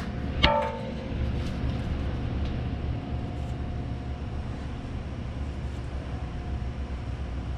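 A single sharp metallic clank, ringing briefly, about half a second in, over a steady low hum of shop machinery.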